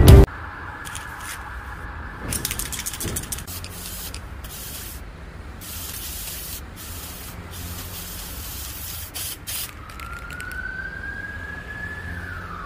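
Aerosol spray-paint can hissing in a series of bursts of varying length, with a steady street-like background. Near the end a siren-like tone glides slowly up and then drops.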